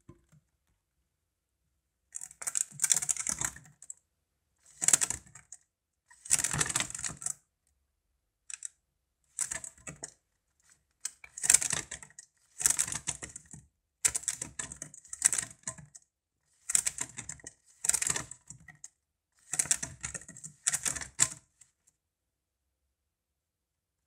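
A chipmunk's claws scrabbling and clicking on the inside of a clear plastic PET bottle as it climbs, in about a dozen short bursts of rapid clicks with pauses between them.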